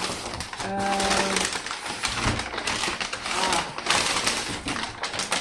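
Crumpled brown kraft packing paper crinkling and rustling continuously as hands dig through it, with many quick crackles.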